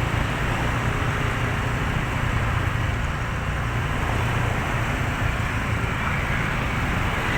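Steady road traffic noise: an even rumble of passing vehicles, with no horn sounding.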